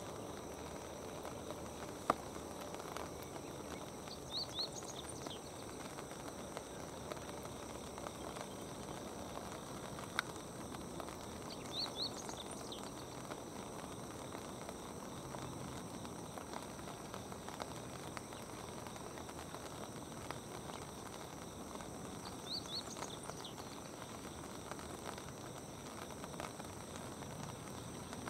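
Quiet outdoor ambience: a steady soft hiss, with a small bird's short, thin, high chirps in quick groups three times, about 4, 12 and 22 seconds in, and a couple of single sharp clicks.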